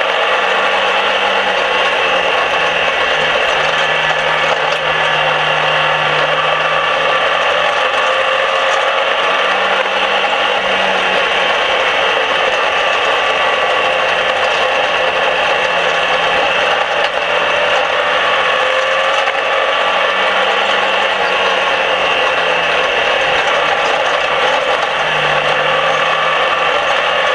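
Dirt-track race car's engine running hard, heard from inside the cockpit with a mechanical rattle, its pitch rising and falling a few times through the laps.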